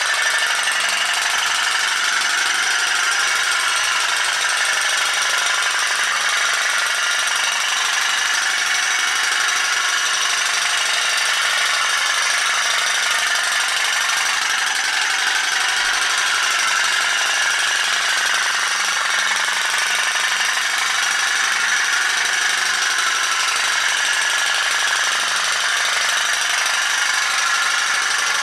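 CK No. E tin pop-pop boat's steam engine running under way, a steady, rapid rattling putter that keeps an even pace.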